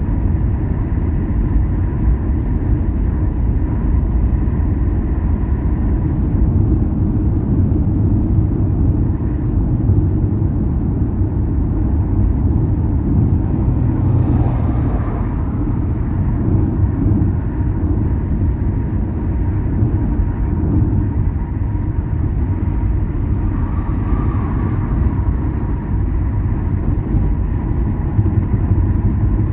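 Steady low rumble of a car driving on the road, engine and tyre noise with no break, with a brief swell of louder sound about halfway through.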